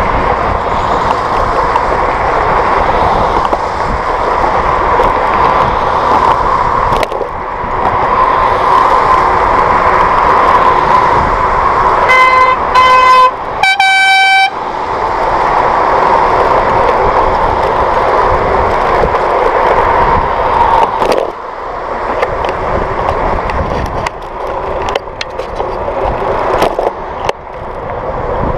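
Steady wind and road noise of a bicycle ride in traffic. About twelve seconds in, a vehicle horn gives about three short toots, followed at once by one louder, higher-pitched honk lasting about a second.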